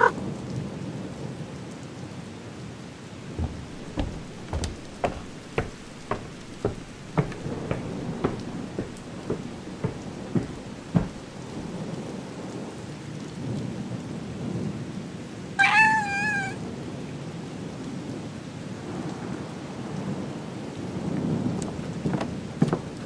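Steady rain with low rumbling thunder that swells near the end. A run of about a dozen footsteps on wooden floorboards, roughly two a second, comes between about 3 and 11 seconds in. A single cat meow, about a second long with a wavering pitch, sounds about two-thirds of the way through and is the loudest sound.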